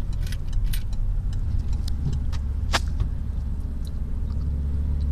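Car road noise heard from inside the cabin while driving: a steady low rumble of engine and tyres, with a few light clicks, one sharper than the rest about halfway through.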